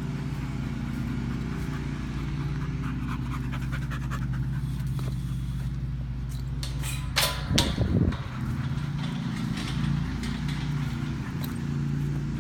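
A dog panting after a herding run, over a steady engine hum. A short loud noise comes about seven and a half seconds in.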